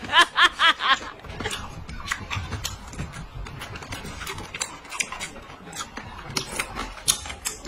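Eating crunchy pickled melon strips from a bowl with chopsticks: many irregular crisp clicks of crunching and chopsticks tapping the bowl.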